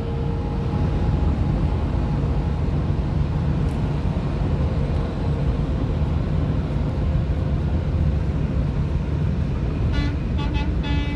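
Steady low road and engine rumble of a car travelling at highway speed, with a faint held tone that fades out about two seconds in.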